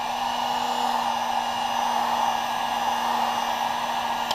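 1500-watt heat gun blowing hot air onto a freshly applied layer of sole protector film to set it: a steady rush of air over a steady motor hum, switched off right at the end.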